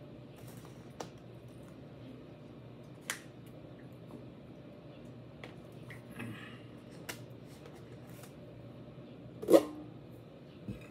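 Plastic water bottle handled while drinking: scattered light clicks and crinkles, then one sharp knock near the end, the loudest sound, over a faint low hum.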